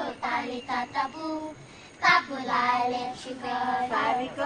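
A girl singing solo in a high voice, in short held phrases; the singing dips briefly and comes back louder about two seconds in.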